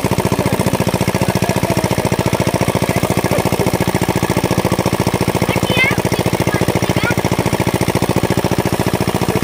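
Small stationary pump-set engine driving a tubewell pump, running steadily with a fast, even chugging beat.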